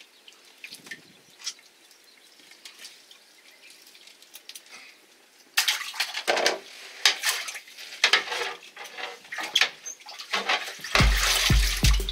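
Wet slapping, rattling and clicking as a live octopus is handled inside a rubber-mesh landing net on a boat deck. It is quiet at first, then a dense run of sharp, irregular clicks and squelches starts about halfway through. Background music with a low beat comes in near the end.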